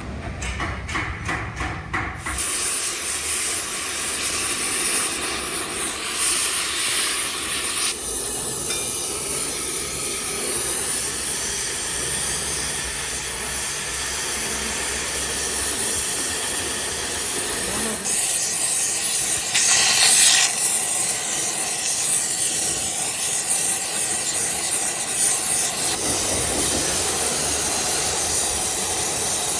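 Steady hissing noise from workshop work on an alloy wheel, changing character abruptly several times, with a rapid run of clicks in the first two seconds.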